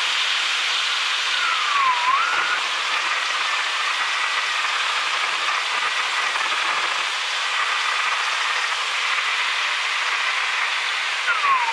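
Steady rushing hiss of airflow and jet engines heard inside the cabin of a McDonnell Douglas MD-88 airliner in flight, with faint whining tones. A short whistle dips and rises about two seconds in, and another falls in pitch near the end.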